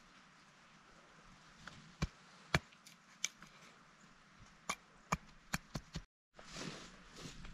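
About eight sharp, irregular chopping knocks over some four seconds. The sound then breaks off abruptly and gives way to a rustling, crunching noise near the end.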